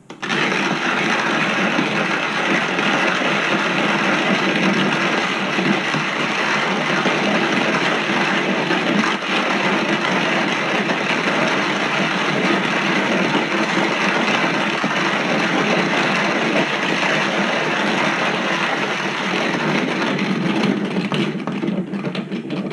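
Wooden box hand-crank coffee mill grinding coffee beans: a loud, steady grinding as the crank is turned.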